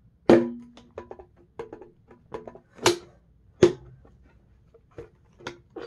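A string of sharp clicks and knocks from handling a plastic water bottle, one of them its flip-top lid snapping shut; the first and loudest knock rings briefly.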